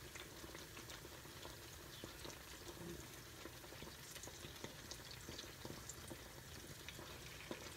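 Pies frying in shallow hot oil in a cast-iron skillet: a faint, steady sizzle with small scattered crackles.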